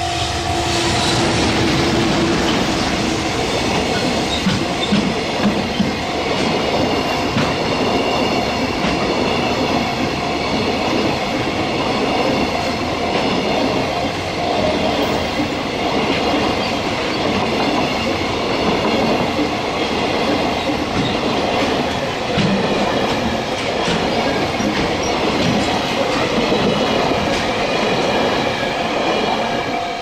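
A JR Freight EF210 electric locomotive and its long train of container wagons passing close by at speed: a steady, loud rumble and clatter of wheels on the rails that drops away suddenly near the end as the last wagon goes by. A level-crossing bell rings steadily underneath.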